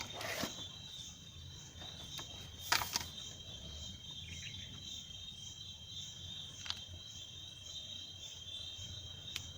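Steady high-pitched insect chirring in the background, with a few light clicks and taps, the loudest about three seconds in.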